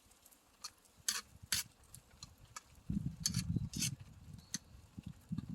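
A few sharp light clicks of a cooking utensil against the cast-iron cauldron lid as the ramyeon is stirred, with a low rumble about halfway through that starts again near the end.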